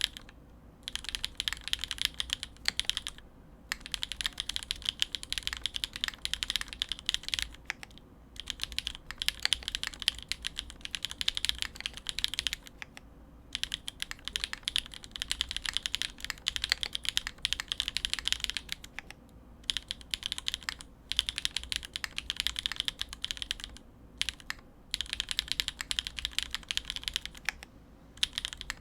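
Typing on a Monokei Kage custom mechanical keyboard: O-ring mount, polycarbonate plate, Poron foam, Gateron RAW linear switches with lubed springs and GMK Gregory keycaps. Rapid keystroke clacks come in runs of a few seconds, broken by short pauses.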